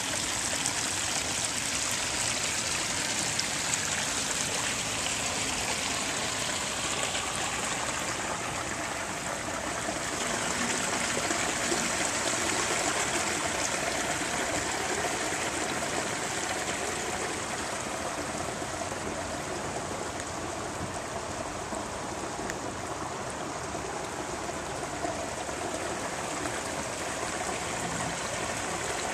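Rain-swollen stream running, a steady rushing of water.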